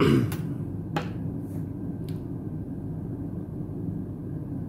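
Steady low room hum with a short sound right at the start and two light clicks, about one and two seconds in.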